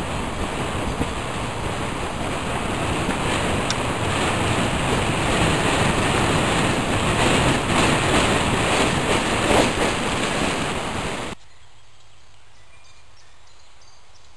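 Loud, steady wind buffeting the microphone of a camera moving fast along a brick-paved path. It cuts off sharply about eleven seconds in, leaving a quiet outdoor background with a few faint high chirps.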